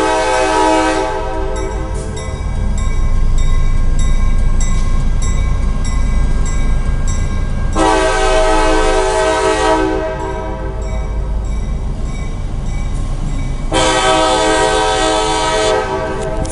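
CSX diesel locomotive sounding its multi-note air horn in three long blasts: one ending about a second in, one about eight seconds in, and one near the end. The low rumble of its engine and wheels runs underneath, and crossing bells ding rapidly between the blasts.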